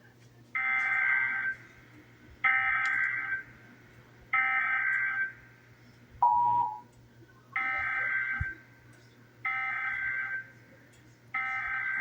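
Emergency Alert System SAME data bursts: six harsh digital screeches of about a second each, in two sets of three, with a short single lower beep between the sets about six seconds in. Each burst is the coded header that opens an EAS message, here for a Required Monthly Test.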